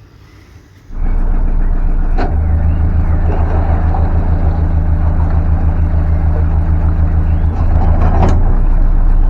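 Narrowboat engine running steadily with a constant low drone, cutting in suddenly about a second in.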